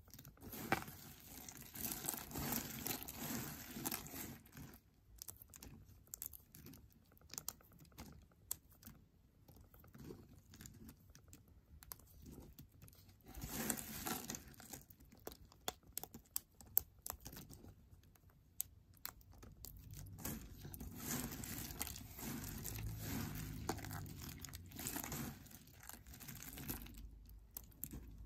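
Crumbled soap pieces and shavings crunching and crackling as hands squeeze, crumble and stir the pile. The crackling comes in bursts, heaviest at the start, around the middle and through the last third.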